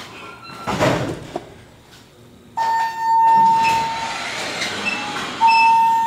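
Elevator arriving: an electronic arrival chime sounds a steady tone twice, about three seconds apart, over the hum and slide of the car doors opening.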